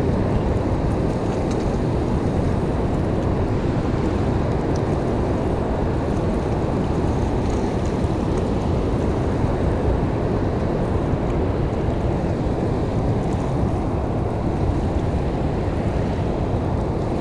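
Steady rush of fast-flowing river water in a dam's tailwater, with wind buffeting the microphone.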